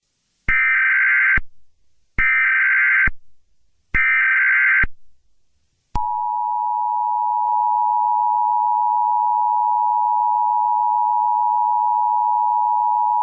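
Emergency Alert System header and attention signal. Three short bursts of SAME digital header data, each just under a second long, come about a second and a half apart. About six seconds in, the long, steady two-tone attention signal begins. The sequence marks the start of an emergency alert broadcast.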